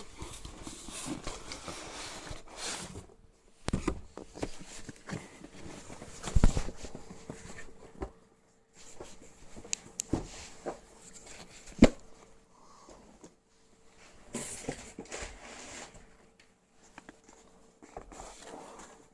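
Cardboard boxes and packaging being handled: scattered knocks, taps and rustles in a small room, with a faint steady hum underneath.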